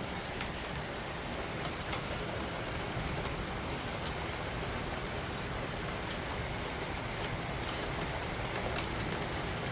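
Heavy rain pouring down steadily, with a few sharper drop taps close by.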